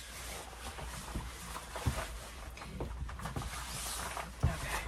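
Yellow PVC rain pants rustling and swishing as the wearer moves, with a few soft thumps of rubber boots on the floor, about two seconds in and again near the end.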